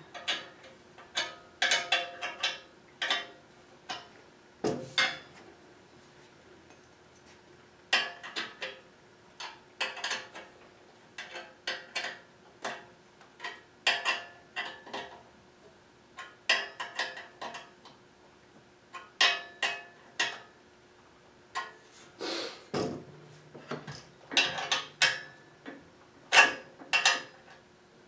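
Metal clinks and clanks of a Holzfforma Alaskan chainsaw mill's frame and clamps as it is fitted to a chainsaw's bar and its bolts are tightened. They come in short irregular groups, each with a brief ring.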